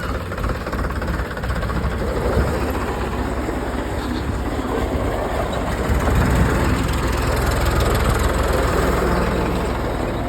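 Mahindra tractor's diesel engine running steadily under load, its low note growing heavier about six seconds in.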